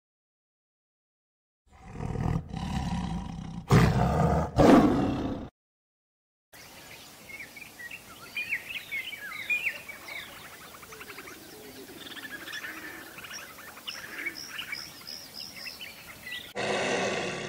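Lion roaring in a loud bout of several calls a few seconds in. Then comes a quieter stretch of outdoor background with small birds chirping, and another loud roar begins near the end.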